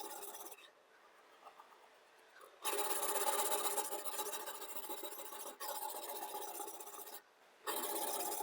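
Diamond sharpening stone scraping along a chef's knife edge in a guided sharpening system, a continuous gritty rasp that stops abruptly early on for about two seconds and again briefly near the end.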